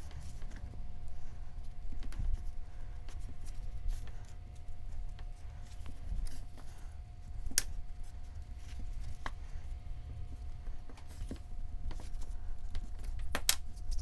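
Hands pressing and smoothing soft air-dry clay onto a clay form, with a low rumble of handling against the work surface and scattered soft ticks. A sharp click comes about halfway through and a louder one near the end, over a faint steady thin tone.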